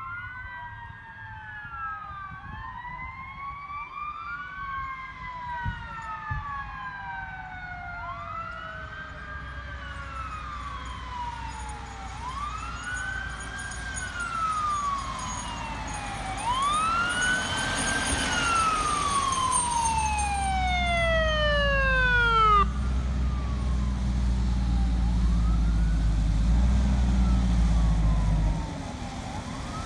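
Emergency-vehicle sirens from an approaching ambulance and fire engine, wailing up and down about every two seconds, with two sirens overlapping at first and long tones sliding down in pitch. From about 17 s in, the heavy engine rumble of the fire engine grows loud as it nears, then drops off sharply near the end.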